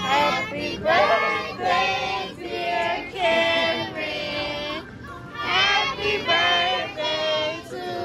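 A song: high sung vocals in a child-like voice over music, in phrases of held notes with short breaks between them.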